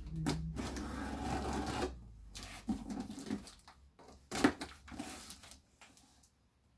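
A blade slitting the packing tape along a cardboard shipping box, a steady scrape for about two seconds, then cardboard flaps and tape rustling and knocking as the box is pulled open, with one sharp knock about four and a half seconds in.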